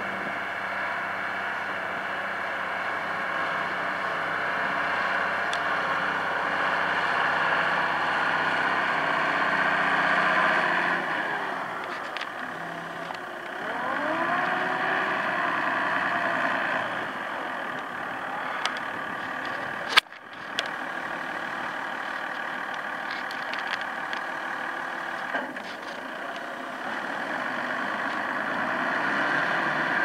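New Holland 8560 tractor's six-cylinder diesel engine running under load while pulling a reversible plough. The engine note dips and rises a few times in the middle, and there is a single sharp click about two-thirds of the way through.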